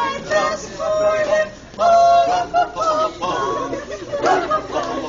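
Group of costumed carolers singing unaccompanied, with several long held notes.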